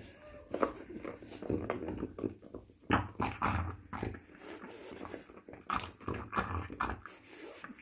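A dog gnawing on a bone, with irregular clicks and scrapes of teeth on bone.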